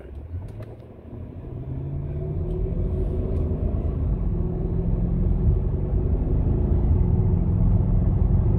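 Mercedes ML63 AMG's 6.2-litre V8 accelerating, heard from inside the cabin. It grows louder over the first two seconds, and its note rises, falls back at a gear change and climbs again.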